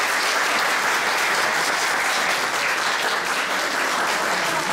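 A roomful of wedding guests applauding steadily as the couple enters, a dense, unbroken clapping.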